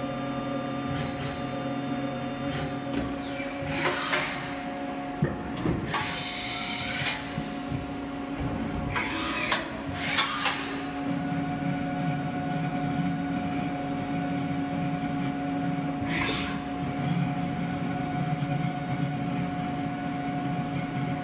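Haas OM-2A CNC vertical mill running: a steady mechanical whine made of several held tones, with a high tone that drops away about three seconds in. Several brief rushing surges come and go as the spindle head and table move.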